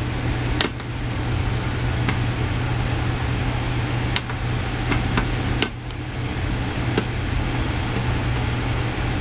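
A few light clicks and taps as an aluminium two-stroke piston is handled on its connecting rod while it is being oiled, over a steady background hum.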